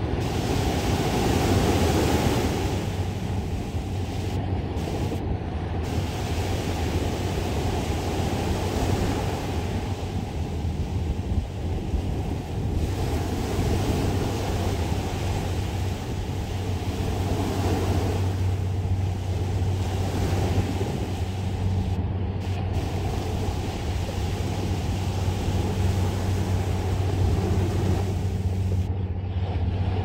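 Small sea waves breaking at the shoreline and washing up the sand, the rush swelling and easing every few seconds, over a steady low engine hum that grows stronger in the second half.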